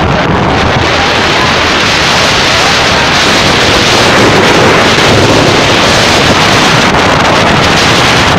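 Loud, steady wind blowing across a phone's microphone on a moving car, covering every other sound.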